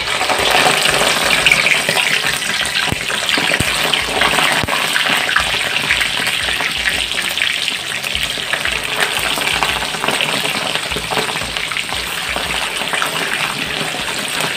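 Chicharon bulaklak (boiled pork intestines) dropped into hot oil for its first fry: a loud sizzle that starts suddenly, full of crackling and popping, settling a little toward the end.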